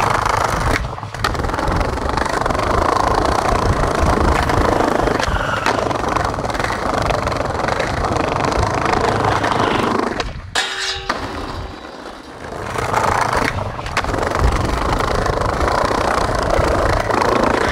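Skateboard wheels rolling over a paved stone path, a steady rough rumble that drops away briefly about eleven seconds in.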